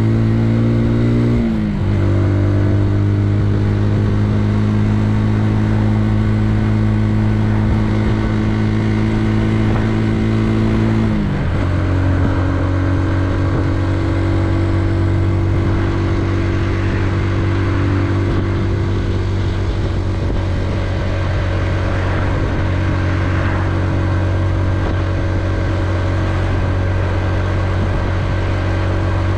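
Benelli Leoncino 125's single-cylinder four-stroke engine running under way at a steady pitch. The engine note drops sharply twice, about a second and a half in and about eleven seconds in, as the rider shifts up a gear.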